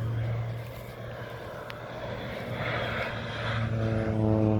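Crop-dusting airplane's engine droning steadily as it makes a low spraying pass, growing louder near the end as the plane comes in.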